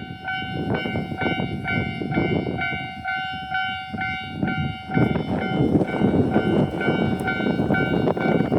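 Japanese railway level-crossing warning bell ringing in a steady, even rhythm of a little over two dings a second. A train's low rumble swells under it about five seconds in.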